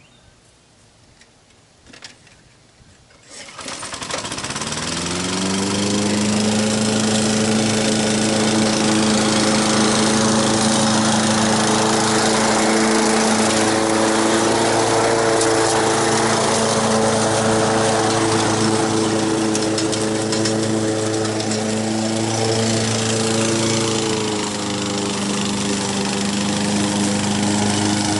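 Honda walk-behind lawn mower's engine starting a few seconds in, rising to a steady running speed, with a brief dip in speed late on. It is running on choke, which the owner puts down to dirt in the carburettor jet.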